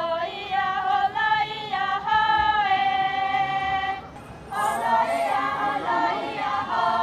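Group of Naga women singing unaccompanied in unison, holding long notes that step up and down in pitch. There is a short pause about four seconds in before the voices come back in with a more moving line.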